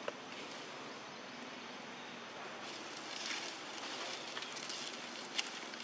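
Outdoor ambience: a steady hiss with light rustling and a few sharp clicks, the loudest a little before the end.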